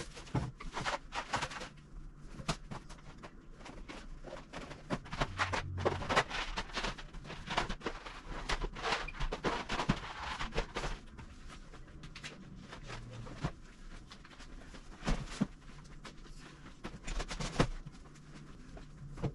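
Plastic food bags crinkling and cardboard boxes being handled and set down on wire pantry shelves, with scattered taps and knocks. The crinkling is densest from about six to eleven seconds in.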